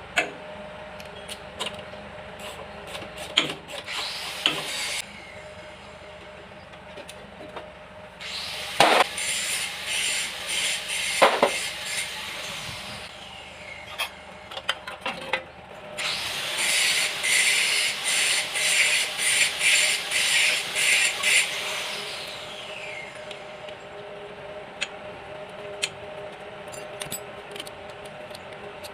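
A hand tool rubbing on a workpiece in quick, even strokes, about two a second, in two bouts of several seconds each, with scattered clicks and taps of tools in between.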